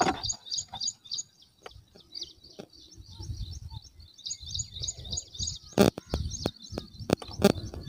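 A small bird chirping rapidly, short high notes repeated several times a second, with a few sharp clicks and knocks close by, the loudest nearly six seconds in.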